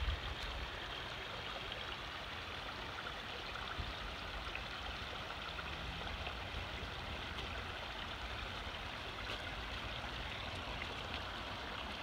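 Shallow rocky creek running over stones, a steady even wash of water.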